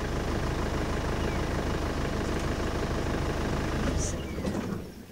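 Safari vehicle's engine running steadily with a low, even throb, then dying away about four seconds in.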